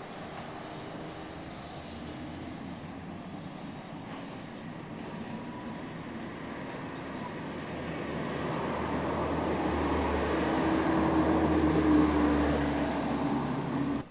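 Electric light-rail car running toward and past the listener, its rumble and a steady motor hum growing steadily louder, then cut off suddenly near the end.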